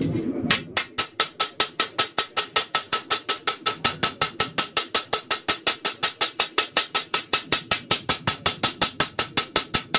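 Rapid, even hammer blows on a steel bowie knife blade lying on an anvil, about five or six strikes a second, each with a short metallic ring.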